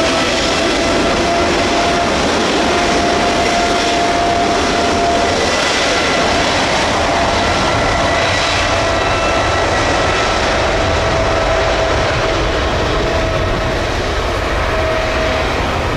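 Boeing 777's twin turbofan engines running at high power as the airliner rolls along the runway: a loud, steady roar with a held whine.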